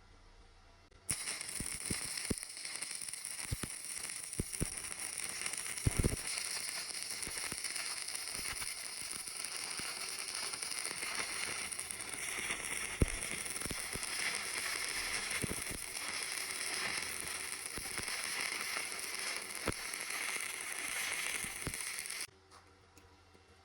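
Stick welding arc crackling and hissing steadily, with scattered sharp pops. It is struck suddenly about a second in and breaks off abruptly near the end.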